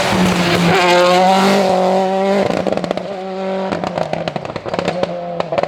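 Rally car engine held at high revs as the car passes. After about two and a half seconds it drops off the throttle, and a quick series of exhaust crackles and pops follows.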